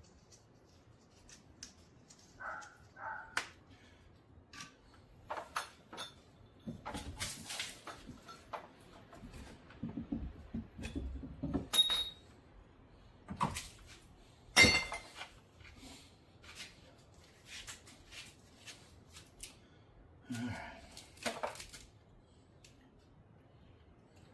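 Scattered clicks, clinks and knocks of plumbing fittings and tools being handled, with one sharp knock about fourteen seconds in.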